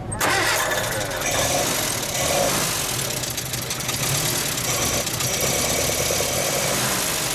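1950 Morris Minor's 918cc side-valve four-cylinder engine starting up at the very beginning and then running steadily at idle.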